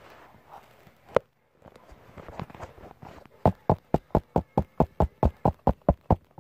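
Knocking on a hard surface: a single knock, then a quick even run of about a dozen knocks, roughly five a second.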